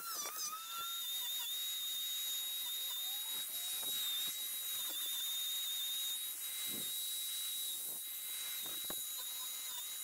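Angle grinder with a carving disc running at speed, a steady high whine over a hiss, as it carves out the bowl of an ash spoon; the pitch wavers a little as the disc bites.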